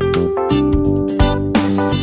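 Instrumental background music of plucked notes that start sharply and fade.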